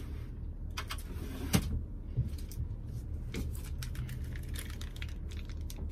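Scattered clicks and light knocks of small metal lock parts and tools being handled, the sharpest about a second and a half in, over a steady low hum.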